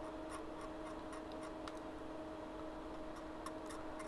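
Faint, irregular light ticks and scratches of a small blade scraping solder mask off a copper trace on a circuit board, exposing the copper for soldering. A steady low hum runs underneath.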